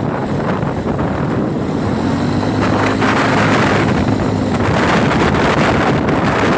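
Quad bike (ATV) engine running under way, with wind buffeting the microphone; the engine note comes through more clearly for a couple of seconds in the middle.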